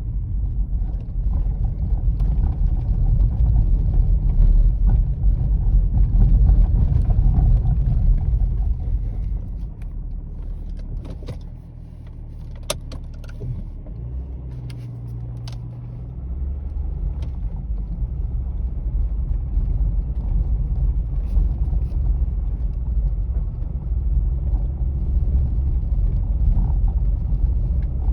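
BMW E39 with a rattle, heard over the car's steady low rumble. The rumble eases off about halfway through, with a few sharp clicks and a brief steady hum, then builds again.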